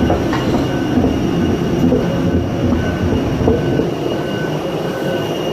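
Steady rumble and rattle inside a moving vehicle, with a faint steady high tone and short repeated higher tones above it.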